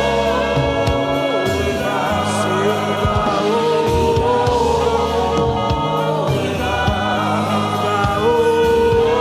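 Gospel choir singing held, wordless notes over a live worship band with bass, keys and drums.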